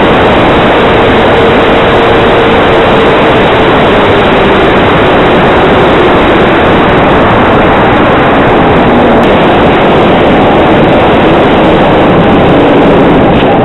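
Wind rushing hard over the microphone on an E-flite P-47D Thunderbolt electric RC model, with the model's motor and propeller hum underneath, falling slowly in pitch.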